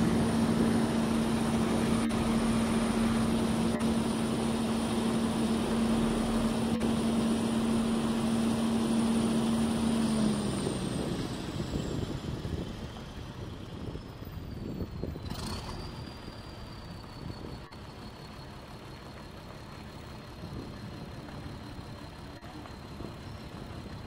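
A machine running with a steady hum for about ten seconds, then fading out. A quieter background follows, with a thin high whine that slides down in pitch and then holds steady.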